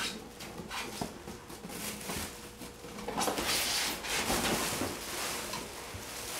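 Parts and packaging being handled while unboxing: light knocks and clatter, then about three seconds in a second-long burst of rustling packaging, with softer rustling after.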